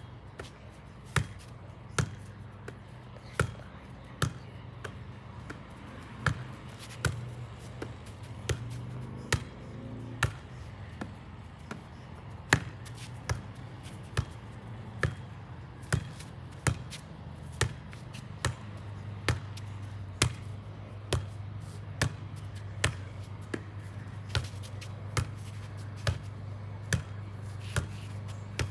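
A volleyball being struck over and over at an even pace, just over one hit a second. A steady low hum runs underneath.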